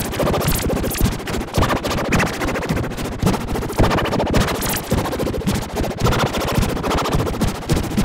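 Harsh, heavily distorted electronic emergency-alert audio: a loud, dense crackling rattle with short rising swells of tone, without a clean steady alert tone.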